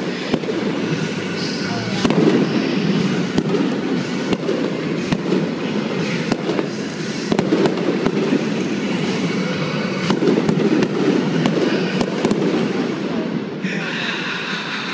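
Aerial fireworks shells bursting in a rapid, irregular string of bangs and crackles. Near the end a steady sound of several pitches joins in.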